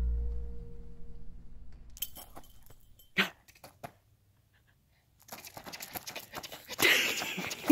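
Low rumble of a car cabin on the move, fading out, with a short cry. After a moment of near silence, a toddler squeals and shrieks over a rushing noise near the end.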